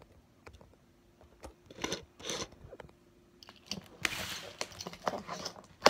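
Fingerboard being ridden and popped on a desk and a small ramp: scattered light clicks and clacks of the board's tail and wheels, a scraping slide about four seconds in, and a sharp clack at the end.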